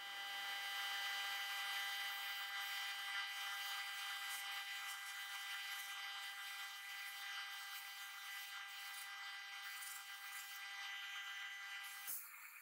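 Sandblast cabinet gun blasting the paint off a painted metal toy tractor part: a steady hiss of air and abrasive with a steady whine over it, cutting off about twelve seconds in.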